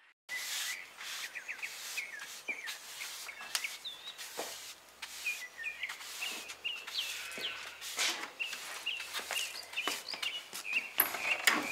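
Small birds chirping in quick short calls over the repeated scratchy swish of a broom sweeping a floor.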